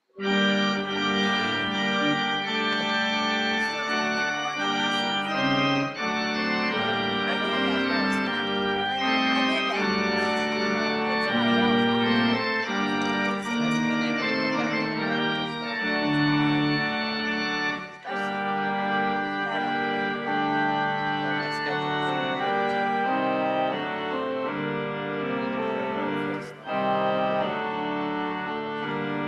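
Church organ playing a postlude: full, sustained chords with moving inner lines. It starts abruptly and pauses briefly twice, about 18 and 26 seconds in.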